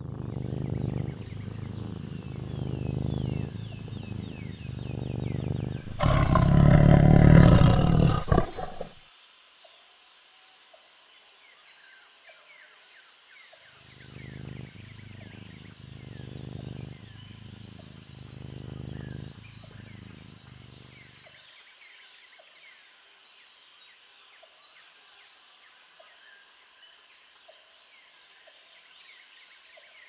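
A tiger growling in low, rhythmic pulses, rising to one loud roar about six seconds in. After a quiet stretch there are more low growls from about fourteen to twenty-one seconds, with faint high chirping behind.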